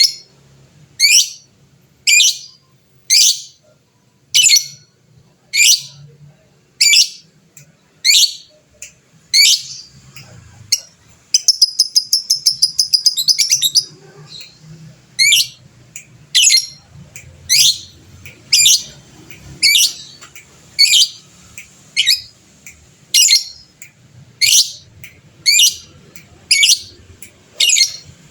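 Lovebird giving loud, sharp, high calls, one about every second and a quarter, with a rapid chattering run of quick repeated notes lasting a couple of seconds near the middle.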